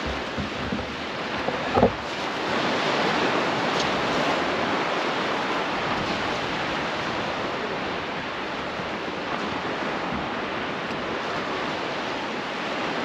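Sea surf washing on the beach with wind buffeting the microphone, a steady rushing noise. A single short bump sounds about two seconds in.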